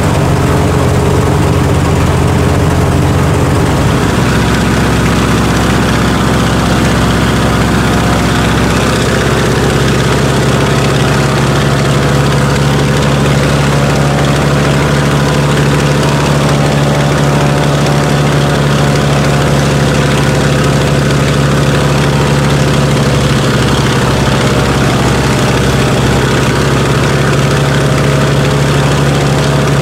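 Lisunov Li-2's Shvetsov ASh-62IR nine-cylinder radial engine running steadily just after its first start of the season, propeller turning. The engine note shifts about four seconds in and again about nine seconds in, then holds steady.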